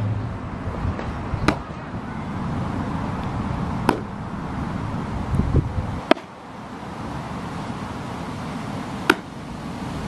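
Pitched baseballs popping into a catcher's leather mitt: four sharp pops a few seconds apart, over steady background noise.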